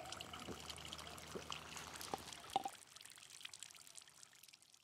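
Water trickling and dripping from a mineral-spring fountain, with scattered drip and bubble blips. It drops down about two-thirds of the way through and fades out.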